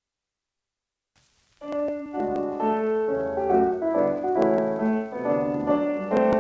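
Silence, then about a second and a half in a piano starts playing the introduction to a song on a 78 rpm record, with faint surface hiss just before the first notes.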